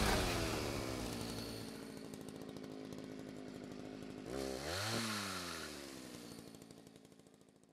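A small engine winding down from high revs, then revved once about four seconds in and dropping back, fading out near the end.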